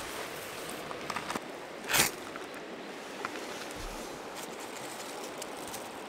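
Steady rush of river water, with a few small clicks and one short scrape about two seconds in.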